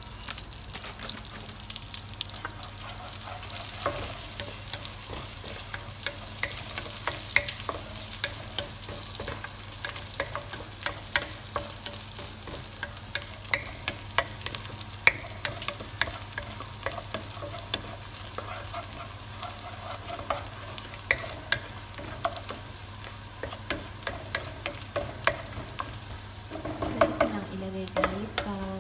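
Garlic frying in melted butter in a nonstick saucepan, sizzling with many sharp crackling pops while a wooden spoon stirs it around the pan. The garlic is being cooked until it browns.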